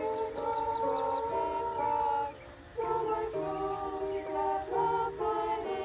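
A small group of women singing a cappella in several voices, holding long notes, with a brief pause between phrases a little before halfway.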